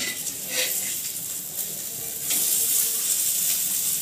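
Hot oil sizzling on a tawa where stuffed bitter gourds are shallow-frying, with a couple of clicks of a metal spatula near the start; the sizzle grows louder a little past halfway.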